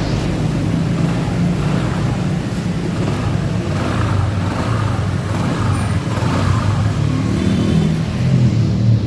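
Honda ADV 150 scooter's single-cylinder engine running steadily after a successful start, the throttle opened a little near the end so the engine note rises. It is running again after the no-start fault was worked on.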